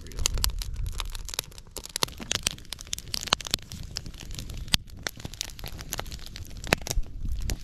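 Wood fire crackling in a steel fire pit, with many sharp, irregular snaps and pops over a low rumble, as a duck is held in the flames to singe its feathers.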